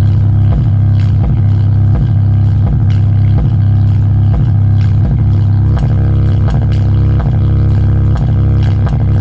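Bare loudspeaker woofer playing loud, bass-heavy music, its cone visibly pumping. A deep bass line pulses with a steady beat.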